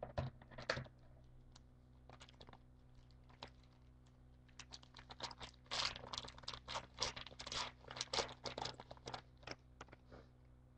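Trading cards and a foil pack wrapper being handled, crinkling and rustling. There are two sharp snaps near the start, then a run of quick, dense rustles and clicks through the middle that thin out toward the end.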